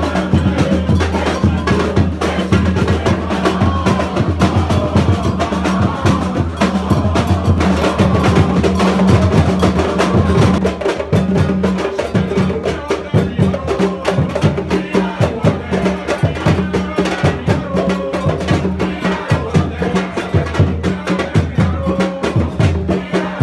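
Live Afro-Brazilian percussion ensemble playing a fast, dense rhythm without a break: conga-style hand drums together with red bass drums struck with sticks.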